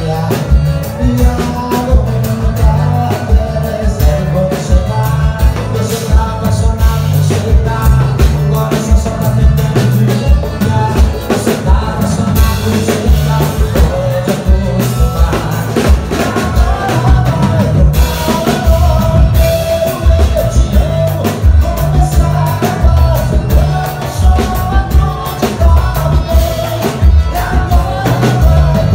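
Live band music: a male singer singing into a microphone over drums, bass and accordion.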